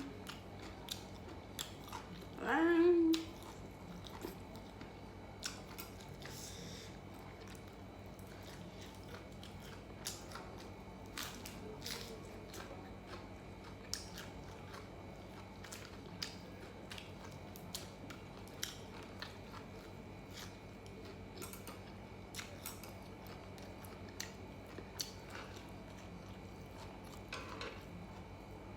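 Close-up mouth sounds of someone chewing and biting grilled pork belly: many small wet clicks and smacks at an uneven pace. A short rising hum of the voice, like an "mm" of enjoyment, comes a little over two seconds in.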